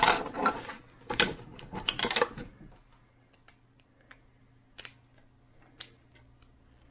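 3D-printed plastic parts clattering against each other and the table as they are handled, a dense rattle for the first two and a half seconds or so. Then a few single sharp clicks as small bits of support plastic are picked off a part by hand.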